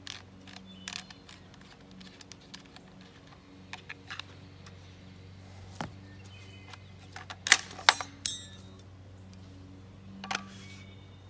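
Scattered metallic clicks and clacks from an Akkar 612 pump-action 12-gauge shotgun as its action is worked to clear a jammed shell, with a cluster of three sharp, loud clacks a little past the middle and another near the end.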